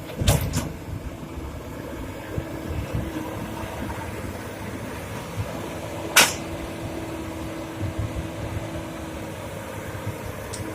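Komatsu PC200 excavator's diesel engine running steadily, with sharp knocks: a double one just after the start, a loud one about six seconds in, and a faint one near the end.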